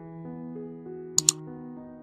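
Soft background music with sustained, held notes, and a mouse-click sound effect from a subscribe-button animation: two quick clicks about a second in.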